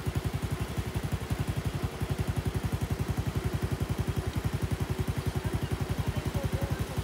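A small engine running steadily at a low, even putter of about ten beats a second.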